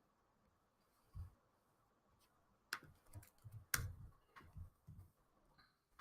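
Faint, scattered keystrokes on a computer keyboard: a single tap about a second in, then a loose run of taps through the middle.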